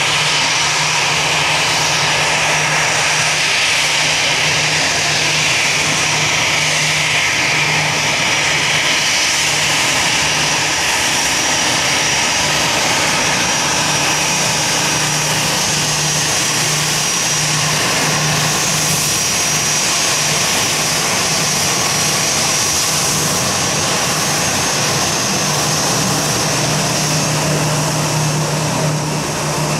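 Airbus A320's twin jet engines running at taxi power close by: a steady jet whine with a high fan tone over a low hum.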